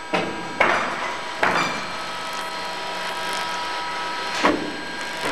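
Machinery running under a locomotive standing over an underfloor wheelset lathe: a steady hum with a few thin steady tones, broken by four sudden rushing surges that start sharply and fade away, the last about four and a half seconds in.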